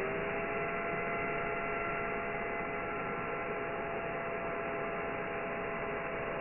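Cordless brushless drill motor running free at a steady high speed, with a constant whine after spinning up from the trigger pull.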